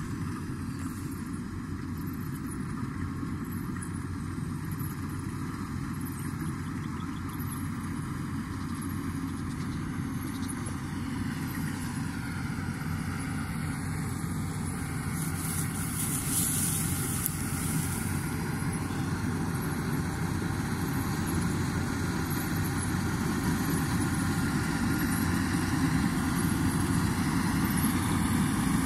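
Rice combine harvester's engine running steadily while it cuts, growing gradually louder as the machine comes closer.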